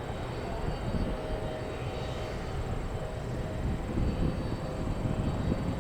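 Boeing 737-800 on approach to land, its CFM56-7B turbofan engines making a steady low rumble with a faint steady whine above it.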